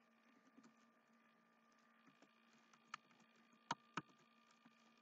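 A few faint computer keyboard keystrokes, single clicks about three and four seconds in, over near silence.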